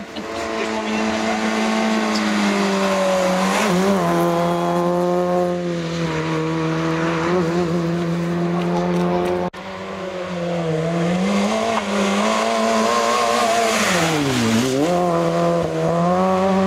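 Fiat Cinquecento rally car's engine running hard at high revs, its note held mostly steady with small wavers. There is an abrupt break about halfway. Near the end the revs drop steeply and climb straight back as the car lifts off and accelerates again.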